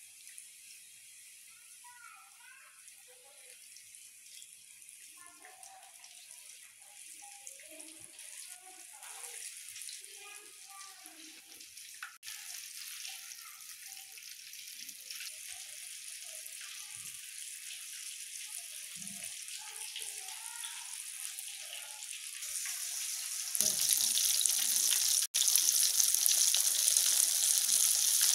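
Soft splashes and rustles of hands working chicken pieces through dry flour and a bowl of water, over a faint hiss. About 23 seconds in, a loud, steady sizzle takes over as the flour-coated chicken deep-fries in hot oil.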